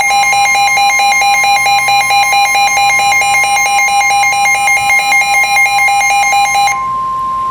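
NOAA weather radio alert: an electronic alarm beeps rapidly, several pulses a second, over a steady single-pitch tone near 1 kHz, the weather radio's warning alarm tone. Near the end the beeping stops and the steady tone continues alone. The alarm signals an incoming severe thunderstorm warning.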